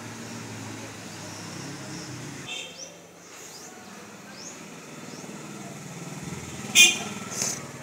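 A small engine runs steadily in the background as a low hum, with short high chirps repeating over it. A sharp, loud sound stands out about seven seconds in, and a smaller one follows.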